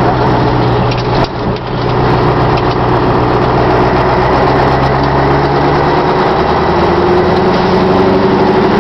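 Scania 142's 14-litre V8 diesel engine running under way, with a brief dip in level about a second in, then its pitch rising steadily through the second half as it pulls and speeds up.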